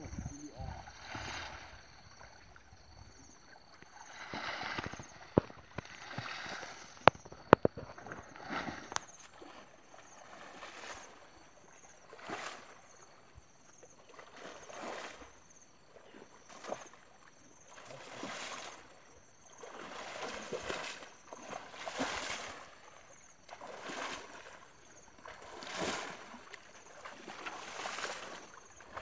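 Water sloshing and swishing as people wade through a shallow pond pushing a two-pole net, coming in surges about every two seconds. A few sharp clicks come about a quarter of the way in.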